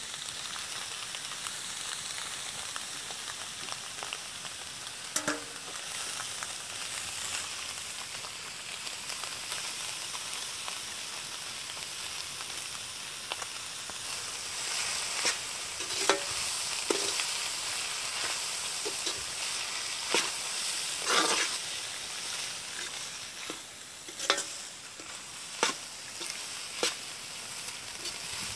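Goat blood fry sizzling in a hot iron wok-like pan, a steady hiss, while a metal slotted ladle stirs it and scrapes and knocks against the pan every few seconds, more often in the second half.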